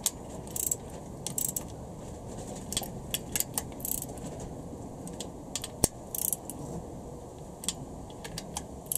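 Torque wrench ratchet clicking in short irregular bursts as the connecting-rod cap nuts of a Honda B18C4 engine are tightened to the first torque step of 20.3 N·m. There is one sharper single click about six seconds in.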